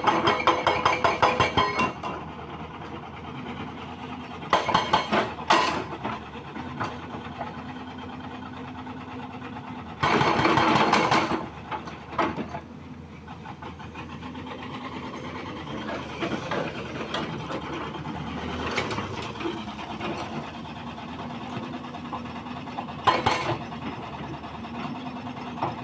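Heavy construction machinery running, its engine steady, with several short bursts of rapid, even clattering and one louder, broader burst about ten seconds in.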